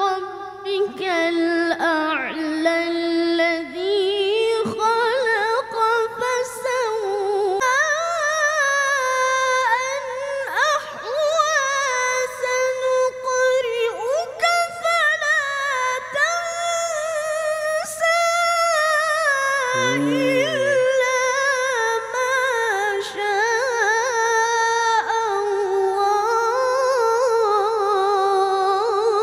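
A boy qari chanting Quran recitation (tilawah) in long, high, melodic phrases with ornamented runs, barely pausing for breath. A brief low voice-like sound comes in about two-thirds of the way through.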